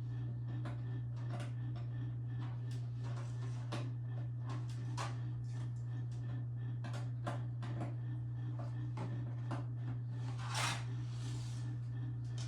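Scattered small clicks, knocks and rustles of hands handling computer cables and parts, over a steady low hum. A louder rustle comes about ten and a half seconds in.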